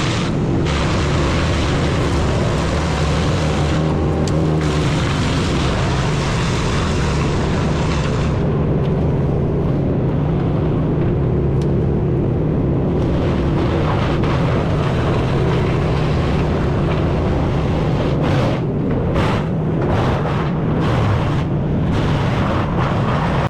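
Large wood chipper running under load, its engine giving a steady low drone while the blades shred wood with a loud, harsh grinding hiss. The hiss thins out about eight seconds in and comes back strongly around thirteen seconds.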